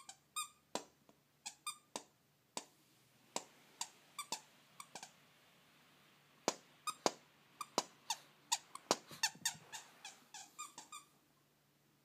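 Shih Tzu chewing a plush squeaky toy: the squeaker gives many short, irregular squeaks and clicks, which stop near the end.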